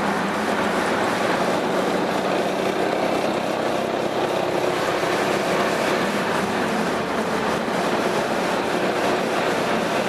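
Piaggio MP3 400 three-wheeled scooter's single-cylinder engine running through an Akrapovič aftermarket exhaust: a steady drone mixed with a broad rushing hiss, its low hum fading a little about two-thirds of the way through.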